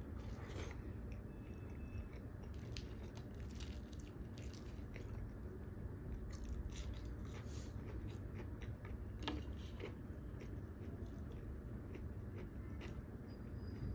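Close-miked eating sounds: a person biting and chewing food, with many short mouth clicks over a steady low hum.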